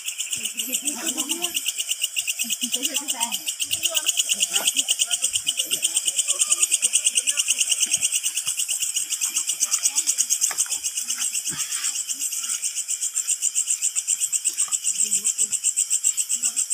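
A loud chorus of night insects chirping in a fast, even pulse, about five pulses a second, steady throughout, with faint footsteps and rustling in the vegetation underneath.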